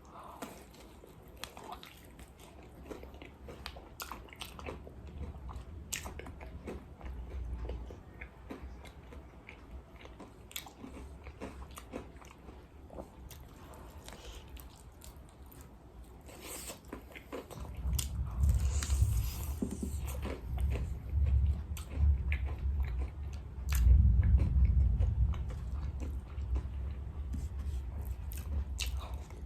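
Close-up chewing and biting of crispy fried chicken, with many small crunches and mouth clicks. The chewing grows heavier and louder about two-thirds of the way in.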